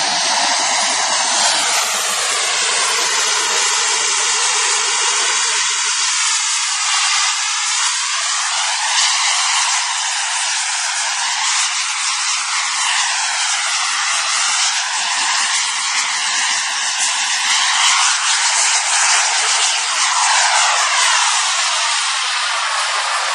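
Radio-controlled model jet's engine running with a steady high-pitched hiss and whine, its tone sweeping up and down in slow waves as the plane hovers and manoeuvres, then climbs away.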